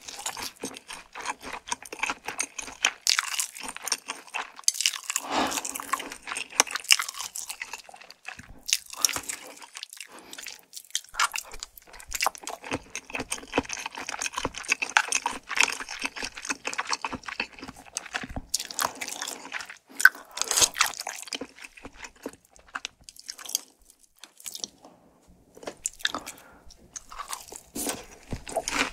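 A person chewing and crunching food close to the microphone, with wet, irregular crunching bites and a short lull near the end.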